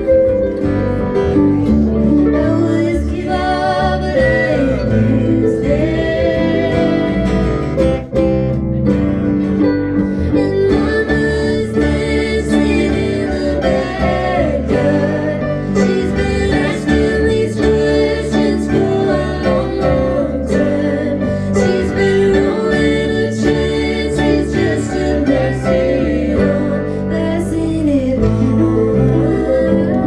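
Live band performance: a concert harp and an acoustic guitar playing a song together, with a voice singing over them.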